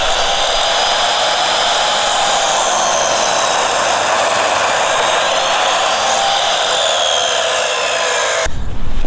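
Delta compound miter saw running under load as its blade cuts through a 2x10 board, a steady high motor whine. It cuts off suddenly near the end.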